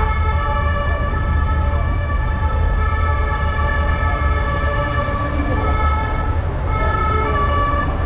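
Emergency vehicle sirens sounding long steady notes that shift pitch every second or two. Underneath is a heavy low rumble of wind on the microphone of a moving bicycle.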